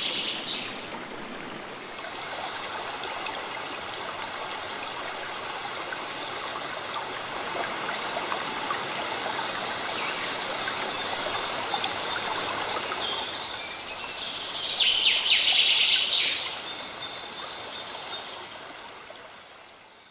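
River water rushing and splashing over a shallow stony riffle, a steady flowing sound, with birds calling. A bird sings loudest about fifteen seconds in, over the water, and then the whole sound fades out near the end.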